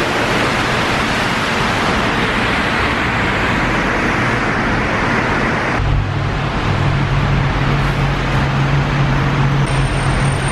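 Steady hiss of rain and traffic on a wet road. About six seconds in it cuts abruptly to a duller traffic sound with a steady low engine hum underneath.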